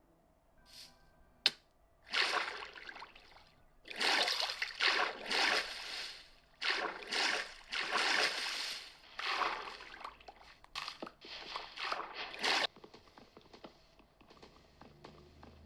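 Packaging or accessories being handled: a sharp click, then a run of rustling, scraping swishes, each about a second long, that stop about three-quarters of the way through, followed by faint small ticks.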